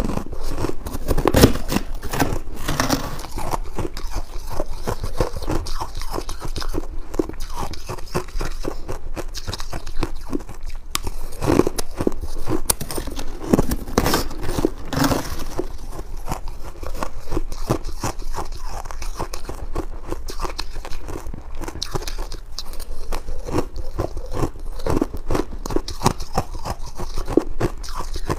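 Close-miked crunching and chewing of freezer frost ice dusted with buckwheat: a dense, irregular stream of crisp crackly crunches as mouthfuls of frost are bitten and chewed.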